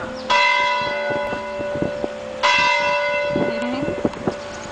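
Church tower bell ringing the call to prayer: two strokes about two seconds apart, each ringing on and slowly fading.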